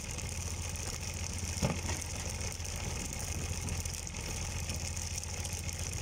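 Fishing boat's engine running steadily with a low hum, with one short knock about a second and a half in.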